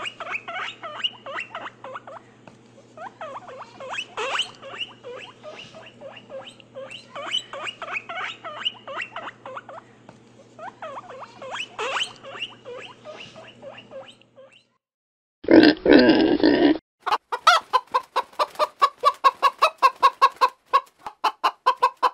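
A dense chatter of many short animal calls over a low steady hum, which stops about 14.5 s in. About a second later comes one loud, harsh call lasting over a second, then a fast run of short repeated calls, about four a second.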